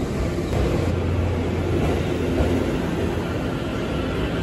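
Running sound of a JR East E257 series electric limited-express train: a steady low rumble of wheels on rail and traction gear.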